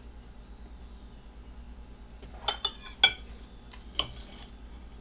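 Light clinks and taps of a ceramic plate and a plastic container being handled while thin onion slices are laid on a sandwich: a quick pair, then a louder clink, then one more a second later.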